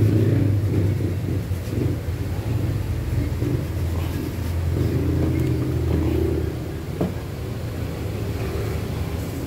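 A motor vehicle's engine running, a steady low rumble with a wavering tone that rises and falls, and a single soft knock about seven seconds in.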